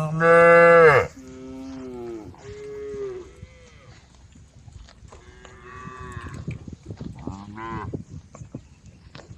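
Cattle in a herd mooing one after another: a loud, drawn-out moo opens, followed by several shorter, quieter calls from other cows, one near the end rising in pitch.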